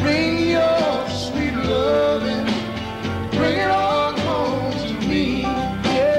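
Country song with a singing voice over instruments, from an off-air recording of a radio broadcast.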